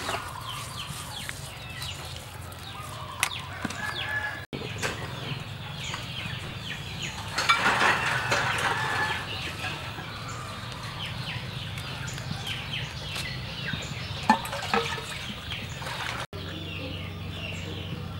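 Chickens clucking and calling, a run of short falling calls, with one louder call lasting over a second about halfway through.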